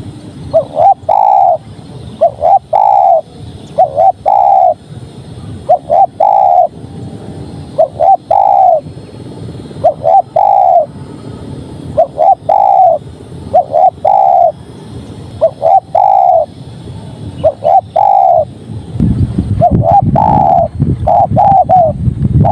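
Spotted dove (tekukur) cooing repeatedly in the steady 'padu' song prized by dove keepers. Each phrase is one or two short coos and a longer falling coo, repeated about every two seconds. A low rumbling noise runs underneath and grows louder near the end.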